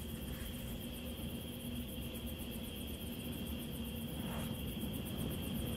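Steady night-time insect chirring, a constant high tone with fast fine ticking, over a low rumble, with one faint click about four seconds in.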